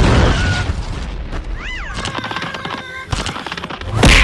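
Cartoon sound effects: a rumbling blast dies away over the first half second. A brief rising-and-falling squeal follows, and a sharp, loud crack comes near the end.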